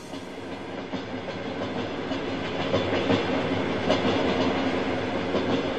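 Railway wagon rolling along the track: a steady rumbling clatter that fades in over the first second.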